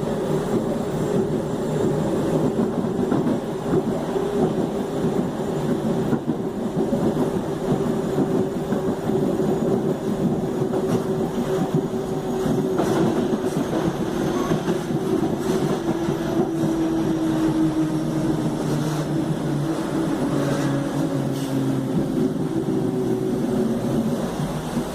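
Traction motors of a Mafersa/Hitachi Series 1700 electric multiple unit whining while running, over the rumble of the train, with scattered clicks from the wheels on the track. The motor whine glides down in pitch through the second half, as the train slows.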